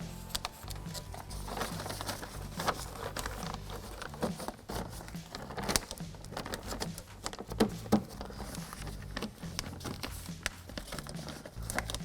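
Plastic vapor barrier sheet crinkling and crackling as it is handled and pressed back onto the inner door panel, with irregular taps and rustles.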